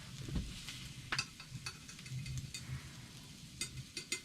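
Pieces of venison heart frying in a pan on a propane camp stove, with scattered light clicks of a utensil against the pan.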